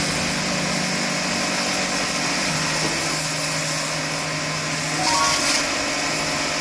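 Texum TX-50 electric high-pressure washer running, with a steady motor-and-pump hum under the hiss of the water spray.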